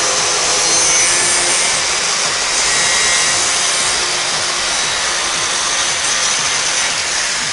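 A grinder running steadily against an Arrow touchscreen deadbolt in a scratch-resistance test. It is a loud, continuous grinding hiss with a faint high whine.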